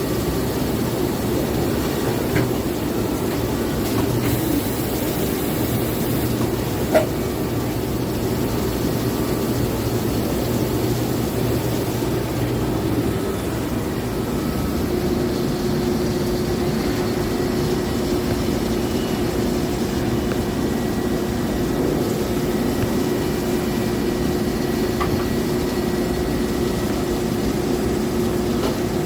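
Citizen K16 CNC Swiss-type lathe running a machining cycle: a steady mechanical running noise. A low hum is held for about ten seconds, then a higher steady whine takes over about halfway through. A few sharp clicks are heard, the loudest about seven seconds in.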